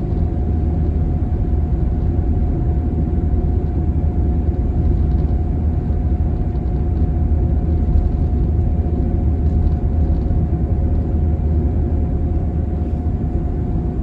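Steady road and engine noise of a car cruising along a highway, heard from inside the cabin: an even low rumble with a faint constant higher hum over it.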